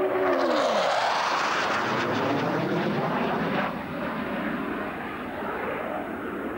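A display aircraft's engine passing low overhead. Its note falls in pitch as it goes by in the first second, followed by loud rushing engine noise that eases off after about three and a half seconds.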